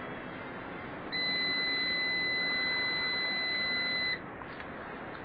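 Multimeter continuity buzzer giving one steady, high-pitched beep about three seconds long as the probes touch across a diode on a hard-disk PCB: the meter is reading continuity, the sign that the diode is faulty and shorted.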